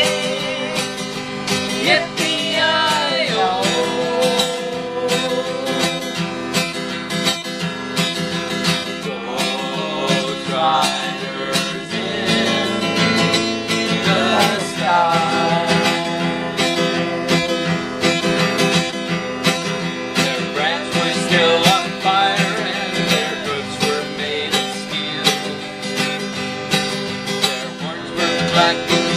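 Acoustic guitar strummed in a steady rhythm, with a voice singing along at times.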